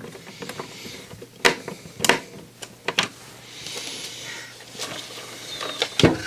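Scattered sharp clicks and knocks as a screwdriver works a case screw and a CD player's sheet-metal chassis is gripped and turned on a workbench, with a soft rustle of handling between them.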